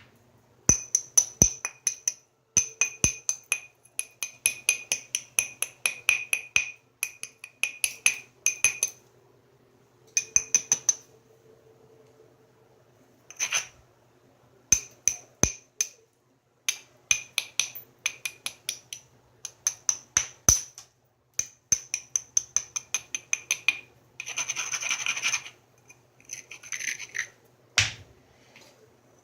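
Hammerstone making runs of quick little strikes along the edge of a knapped stone, several taps a second with a short ringing click each, to set up striking platforms. A short rubbing scrape of stone on stone about 25 seconds in and a single dull knock near the end.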